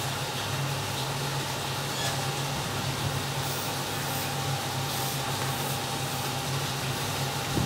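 Steady machine hum with hiss, like a fan or motor running, with a few faint small ticks of little parts being handled.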